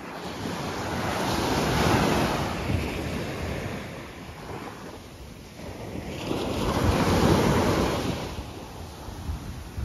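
Small waves breaking and washing up a sandy shore, the surf noise swelling twice, about two seconds in and again about seven seconds in, with wind rumbling on the microphone.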